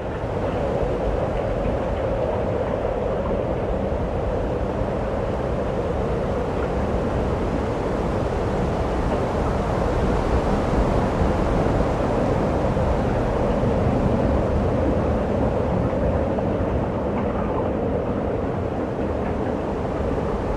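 Cave ambience of cold wind blowing steadily through a stone cave: a hollow rushing with a low rumble underneath, swelling a little about halfway through.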